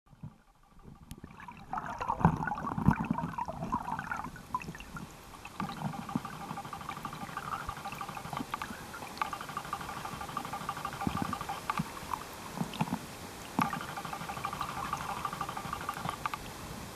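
Muffled underwater sound picked up through a waterproof compact camera submerged in a lake: gurgling water with a few dull knocks, and a faint hum that comes and goes.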